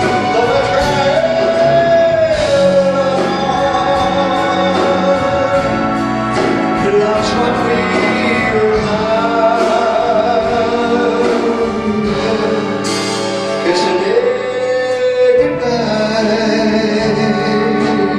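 A man singing a ballad into a microphone over live big-band accompaniment of brass, saxophones and flute, holding long notes with vibrato.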